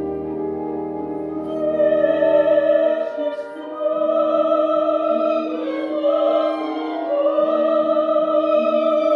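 Classical soprano singing with wide vibrato over an orchestra; the voice enters about a second and a half in, and the orchestra's low held bass notes drop out about a second later.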